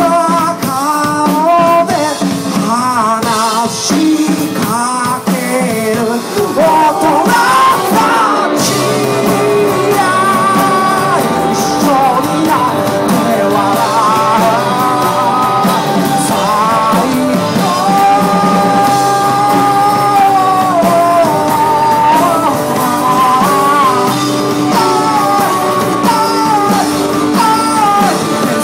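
Rock band playing live: a man sings lead over strummed acoustic guitar, electric guitar and drums.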